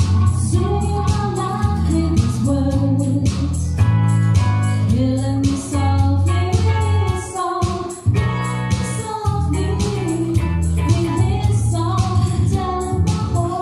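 A singer performing live with an accompaniment of steady bass and an even drum beat, in a groovy Latin-jazz dinner-music style. The bass and beat drop out briefly about eight seconds in.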